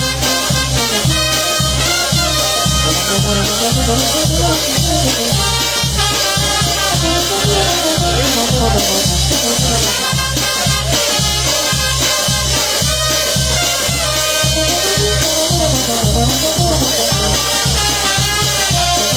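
Live Peruvian brass band playing an instrumental passage of a Latin dance tune: a steady drum beat under a winding wind-instrument melody, with no singing.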